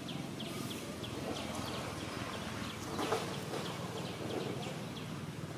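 Outdoor ambience with a rapid, regular series of short high chirps, about three a second, and a brief louder noise about three seconds in.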